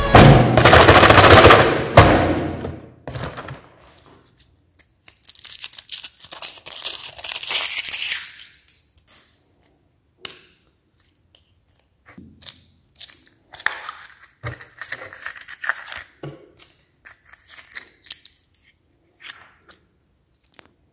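Opens with a loud rushing noise for about two seconds. Then the foil wrapper of a chocolate surprise egg crinkles and tears as it is peeled off. Later come sharp clicks and small crackles as the chocolate is broken, the plastic toy capsule is opened, and small plastic toy parts are handled.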